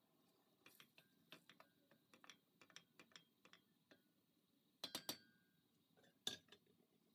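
Faint knocks and clicks of a wooden spoon against a stainless steel pot as thick tomato sauce is stirred. There are a few louder knocks about five and six seconds in.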